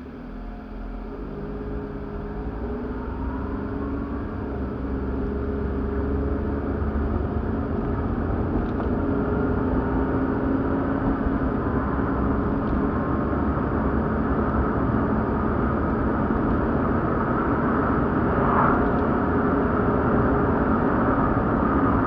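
Car driving, heard from inside the cabin: engine and road noise grow louder and rise in pitch as the car pulls away and gathers speed, then settle into a steady drone.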